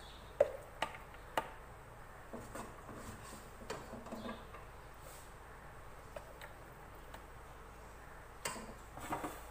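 Cooked chana dal and beef being dropped into a plastic food-processor bowl: scattered light clicks and knocks against the bowl, three sharper ones in the first second and a half and a short cluster near the end.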